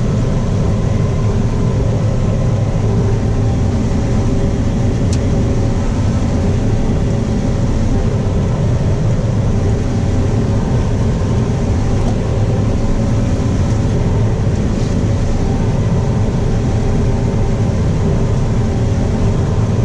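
Combine harvester running steadily while combining corn, heard from inside the cab: a constant machine drone with a steady hum. A single short click about five seconds in.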